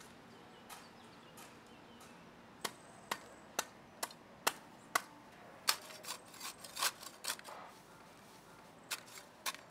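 Machete blade chopping into grass and soil: a series of short, sharp strikes about two a second that starts a few seconds in, comes faster for a while, then pauses and resumes with a few more strikes near the end.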